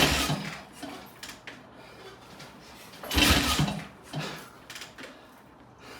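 Triumph T20M single-cylinder engine being kicked over at full throttle: two loud kicks, one at the start and one about three seconds in, with fainter knocks between. The engine does not fire, a sign that the bike is hard to start.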